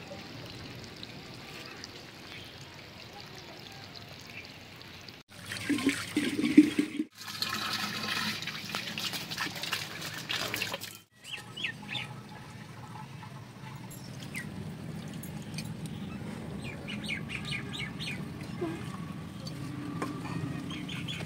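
Birds chirping over steady outdoor background noise, with a louder, noisier stretch in the middle broken by abrupt cuts.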